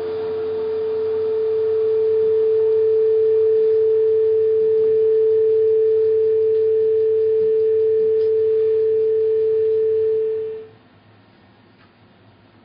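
A single steady pure tone, held without wavering as part of the stage soundtrack, dies away quickly about ten and a half seconds in, leaving only faint room noise.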